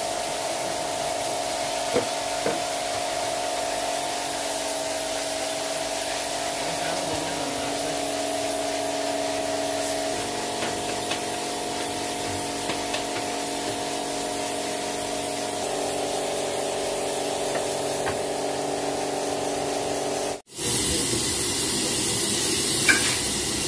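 Steady hissing of pressurised gas, with a few faint steady tones under it. It drops out abruptly about 20 seconds in and comes back louder.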